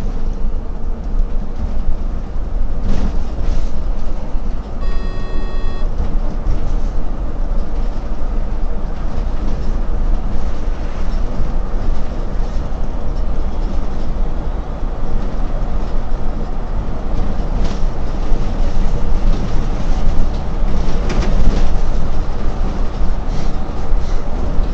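Solaris Urbino 18 articulated diesel bus driving at speed, heard from the driver's cab: a steady low engine and road rumble with occasional rattles. A short electronic beep sounds about five seconds in.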